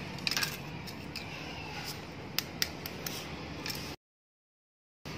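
A few light, sharp clicks and taps of eggs being handled over a plastic lid, over a steady low hum. The sound cuts out completely for about a second near the end.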